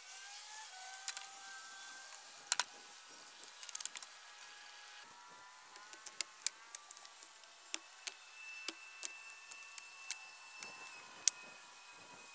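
Stones knocking against each other in sharp, separate knocks as rocks are lifted and set down while digging among a pile of flat stones.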